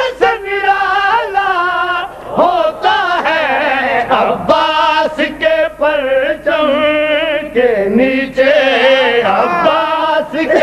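A man singing a qaseeda, a devotional Urdu-Punjabi poem, solo voice in long, wavering, drawn-out notes.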